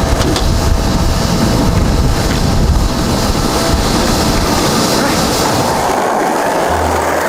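Wheels rolling and rattling over a hard outdoor surface: a steady, loud rumbling noise.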